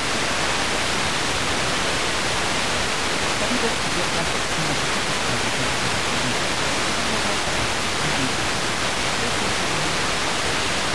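Steady FM static hiss from a Tecsun PL-606 portable radio tuned to a weak station at 89.7 MHz, with faint traces of a voice showing through now and then: the broadcast signal is too weak for clear reception.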